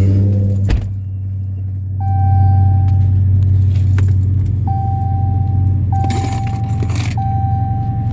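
2016 Dodge Challenger Hellcat's supercharged 6.2-litre HEMI V8 idling with a steady low hum, while the dashboard warning chime sounds over and over in long, even tones. Keys jangle about six seconds in.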